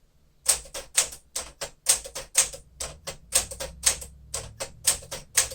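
1956 Smith-Corona Clipper manual typewriter being typed at a steady pace: sharp typebar strikes, about four to five a second, after a brief pause at the start.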